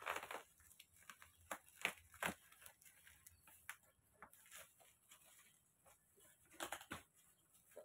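Packing tape and plastic wrapping on a parcel being picked at and pulled loose: irregular crinkles and short rips, a few louder ones about two seconds in and near the end.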